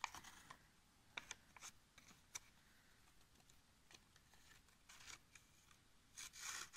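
Faint crinkling and rustling of stiff coloured paper as a threaded needle is pushed through it and the thread drawn along: a few soft scattered ticks, then a longer rustle about six seconds in.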